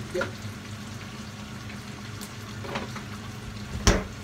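A refrigerator door is opened and a bottle taken out, with a few light clicks and knocks, then the door shuts with a loud thump near the end. A steady hiss and low hum run underneath.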